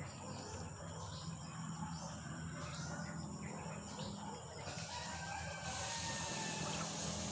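A rooster crowing, heard over a steady high insect chirring that grows louder near the end.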